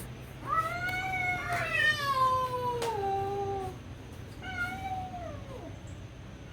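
A cat yowling: one long drawn-out call that rises and then slides down in pitch, followed by a shorter call that falls away. These are the low, drawn-out yowls that cats make in a territorial standoff with a stray cat.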